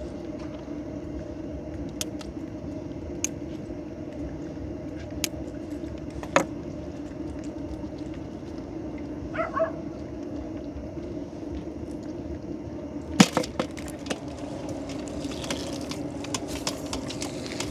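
A small boat engine runs with a steady low hum. Scattered sharp clicks and knocks sound over it, the loudest about 13 seconds in.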